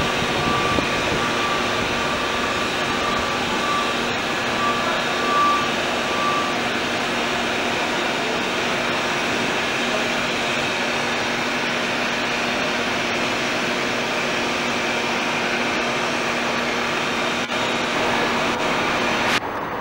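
Subway train running on elevated track, a steady rumble and hiss with a thin high tone over the first six seconds or so. The sound changes abruptly near the end.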